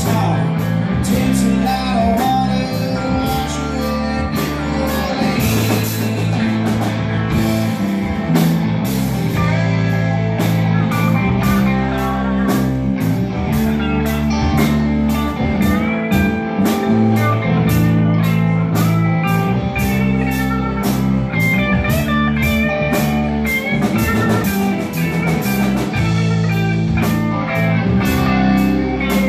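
Live blues-rock band playing an instrumental break: electric guitars and electric bass over a drum kit keeping a steady beat, with no singing.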